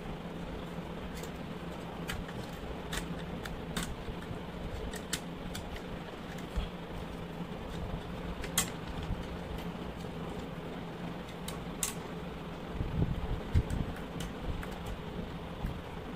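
Scattered light clicks and taps of a screwdriver and fingers working the plastic housing and wiring of an opened electric clothes iron, with a cluster of louder knocks near the end, over the steady hum of an electric fan.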